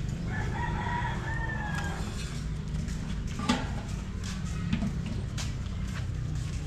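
A rooster crows once, a single drawn-out call of under two seconds, over steady low background noise. Two short knocks follow later, the first the loudest moment.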